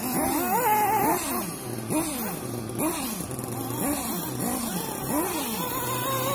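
Motors of radio-controlled off-road racing trucks whining up and down in pitch, over and over, as they accelerate and brake around the track, several overlapping. Near the end one motor holds a steadier pitch.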